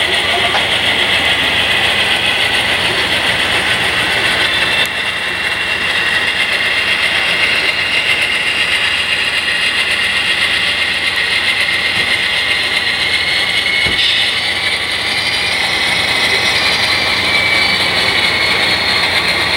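HO-scale model diesel locomotives and freight cars running along the track, making a steady mechanical whirring and rattling from wheels and gear drives.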